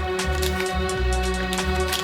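Background music: held notes over a pulsing bass line, with a few faint clicks over it.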